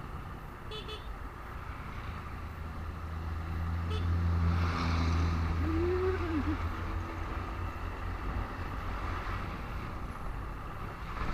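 Road traffic heard from a moving motorcycle in slow, congested traffic: a steady low engine drone that grows louder through the middle and then eases off, over road noise.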